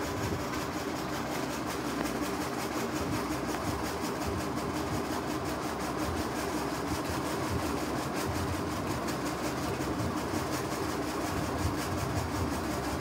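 A steady mechanical hum and rumble that runs on without change.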